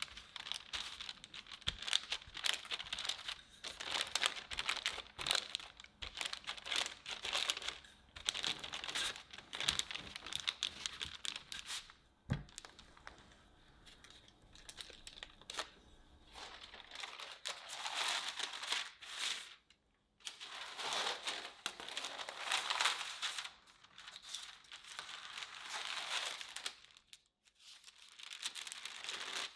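A wooden rolling pin is pushed back and forth over butter cookie dough between sheets of parchment paper. The paper crinkles and rustles in repeated strokes.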